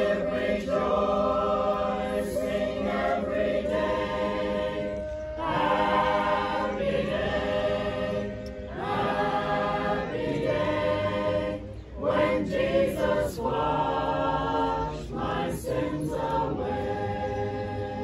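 A choir singing, with long held notes in phrases of a few seconds and short breaks between them.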